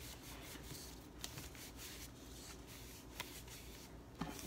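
Faint rustling of a sheet of paper being handled, with a few soft clicks.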